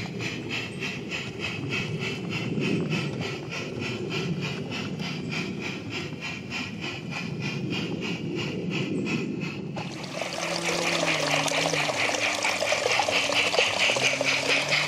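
Garden-railway train of loaded ore skip wagons rolling along the track, with a steady rhythmic clicking of the wheels, about five a second. About ten seconds in it becomes louder and brighter, and the low hum of the battery loco's motor comes in as the engine passes close.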